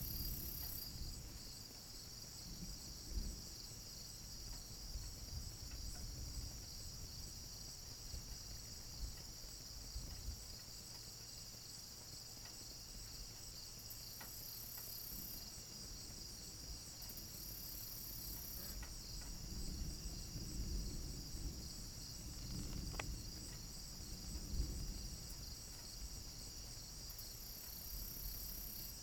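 Night insects, crickets or the like, chirring in a steady high drone, with low rumbling that comes and goes and swells about twenty seconds in.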